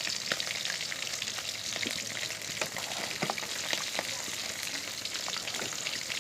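Onion-and-tomato masala with spices frying in oil in a pan: a steady sizzle with frequent crackles and the scattered clicks of a spatula stirring it.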